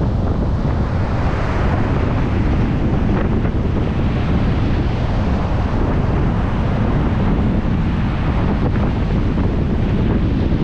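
Storm surf pounding a beach, with strong wind buffeting the microphone, making a loud, steady low rumble.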